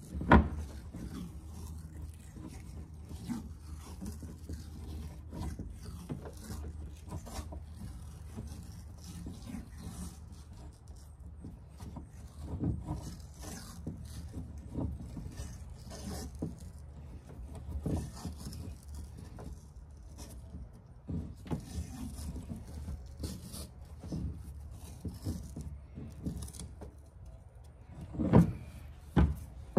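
Handling noises from winding grip tape onto a chainsaw's wrap-around handle: the tape rustling and rubbing as it is wound, and the handle knocking against the work surface. There is a sharp knock about half a second in and two louder knocks near the end, over a steady low hum.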